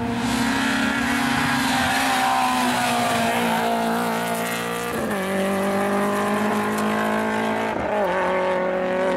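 Hill-climb race car's engine running hard up the course. Its pitch sinks gradually, then drops abruptly about five seconds in and shifts again near the end.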